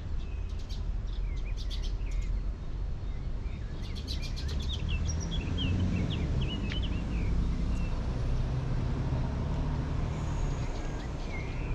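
Birds chirping in short calls over a steady low rumble, the chirps thickest in the middle and again near the end.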